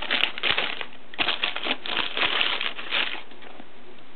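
Tissue paper rustling and crinkling in a cardboard shoebox as a sneaker is lifted out of its wrapping, in irregular bursts that stop about three seconds in.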